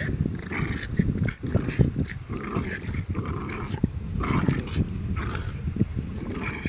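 Two dogs, a Jack Russell terrier and a larger dog, growling in irregular surges as they play tug-of-war over a stick.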